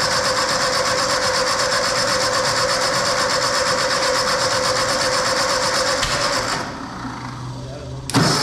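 Ford 8N tractor's electric starter cranking its four-cylinder engine in a steady, rasping whirr for about six and a half seconds without it catching. It stops, and a second crank begins near the end.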